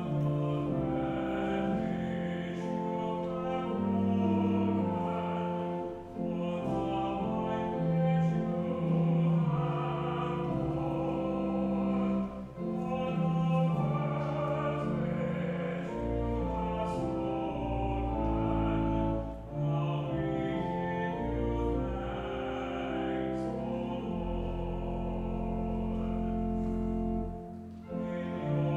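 Communion music: a classical-style singing voice with vibrato over held chords and deep sustained bass notes, in phrases with short breaks every six or seven seconds.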